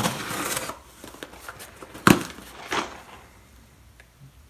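A pocket knife slitting the packing tape on a cardboard box, a scratchy rasp at the start. About two seconds in comes a sharp snap, the loudest sound, with a softer one shortly after, then faint rustling of cardboard as the box is handled.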